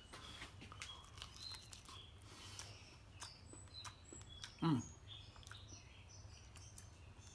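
Faint small birds chirping and tweeting, with one short falling 'mmm' from a man savouring a bite of food about two-thirds of the way through.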